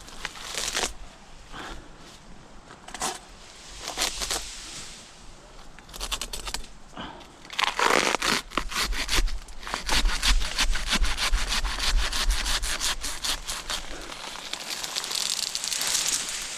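Hand pruning saw cutting through a queen palm frond with rapid rasping strokes, mixed with crackling and rustling of the dry frond fibres. A few scattered strokes come first; the steady, loudest sawing runs from about six seconds in until about two seconds before the end.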